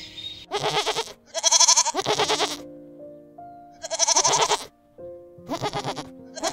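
Goat or sheep-type bleating: about five wavering, pulsing bleats, each under a second long, over background music with held notes.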